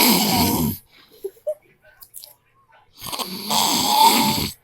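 A man snoring loudly in his sleep. One snore fades out within the first second; after a quiet pause, a second snore starts about three seconds in and lasts about a second and a half.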